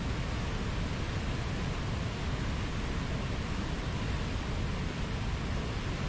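White-water river rapids and a waterfall rushing: a deep, steady, unbroken rush of water.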